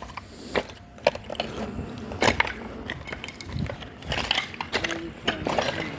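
Footsteps crunching and clicking on debris, irregular sharp crunches about once or twice a second.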